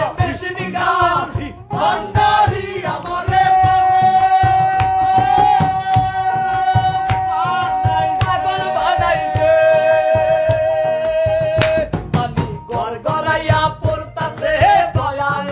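Men singing a Bengali song in a group to hand-drum accompaniment; a steady beat of drum strokes runs under the voices. One long note is held from about three seconds in to about twelve seconds in, stepping down slightly near its end.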